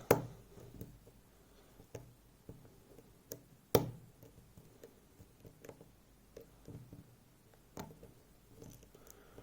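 Sharp clicks from a lock-pick hook working the barrels (pin stacks) of a FAB Variant lock, each click a barrel setting at the shear line. They come at irregular intervals, with small ticks between, and the loudest falls a little under four seconds in.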